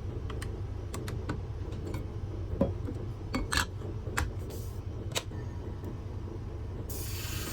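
Light metal clinks and clicks as a shear blade is handled and set up, over the steady low hum of a running sharpening machine. About seven seconds in, a loud, even grinding hiss starts suddenly as the blade is put to the machine to be sharpened.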